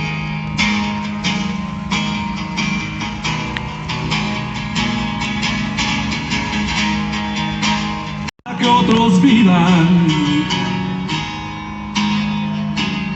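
Song with strummed guitar; after a brief break about two-thirds of the way in, a voice comes in singing.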